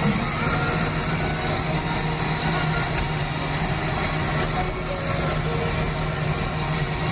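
Bombardier BM 50 engine running steadily under load, driving its front snowblower as it throws snow, heard from inside the cab.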